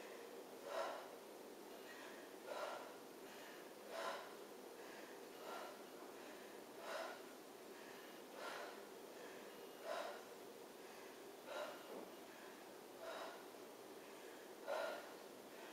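A woman's short, forceful breaths out, one with each crunch, about every second and a half, ten in all.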